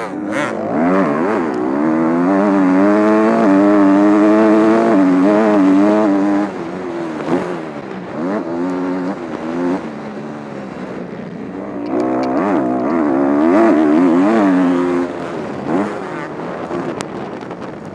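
Kawasaki KX250F four-stroke single-cylinder motocross engine revving hard on track, its pitch climbing and dropping back again and again as the rider works the throttle and gears. It is loudest in the first six seconds and again from about twelve to fifteen seconds in, easing off in between.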